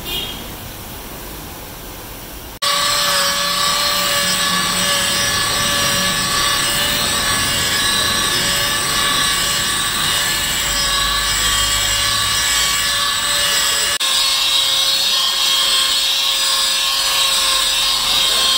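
Electric rotary polisher with a foam pad buffing car paint with medium cutting compound: a steady motor whine that starts abruptly about two and a half seconds in, after a quieter opening stretch.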